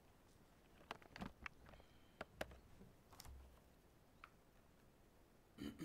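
Near silence: quiet room tone with a few faint, scattered clicks and ticks, and a brief soft sound near the end.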